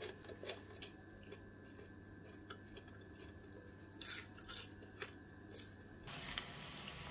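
Faint scattered crisp clicks and crunches, then about six seconds in a steady sizzle of battered vegan ham sticks frying in hot oil starts suddenly.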